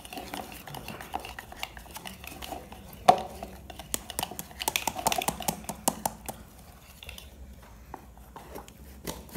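Hand whisk beating chocolate cake batter in a bowl, with many quick, irregular clicks and scrapes of the whisk against the bowl and one sharper knock about three seconds in.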